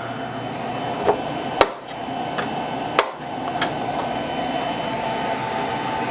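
Plastic snap clips of an all-in-one computer's back cover clicking loose as the cover is pried off with a screwdriver: several sharp clicks in the first four seconds, over a steady hum.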